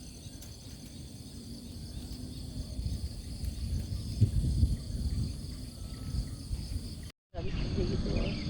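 Crickets and other night insects trilling steadily in a high, pulsing band. Under them runs a low rumbling noise with a couple of louder bumps about four seconds in. The sound drops out for a moment near the end.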